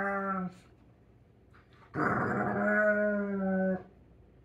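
German Shepherd play-growling in long, even-pitched moaning whines while it bites at its own hind foot. There are two of them: one that stops about half a second in, and a second from about two seconds to nearly four.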